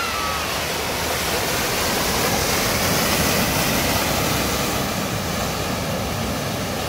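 Rushing floodwater with the heavy splashing of a Range Rover ploughing through a deep ford, pushing a bow wave. It makes a steady roar of water that swells slightly around the middle.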